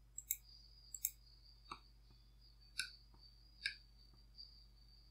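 Faint computer mouse clicks, about eight in all, the first four coming as two quick double clicks. A thin, steady high-pitched whine sounds faintly behind them.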